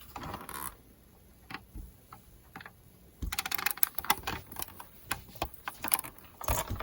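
Cotton fabric being folded and pressed by hand: a soft swish of cloth at the start, then scattered light clicks and taps, with a dense flurry of them about halfway through.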